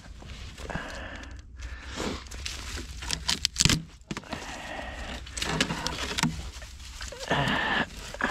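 Scraping and rustling of dry roots, dirt and grass as a dead beaver is dragged out of its den under a tree root mass, in several rough pulls, with a cluster of sharp knocks about halfway through.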